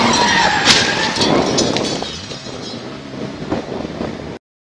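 Road and wind noise from inside a moving car, growing quieter over the first couple of seconds, with a sharp knock under a second in. The sound cuts out to silence just before the end.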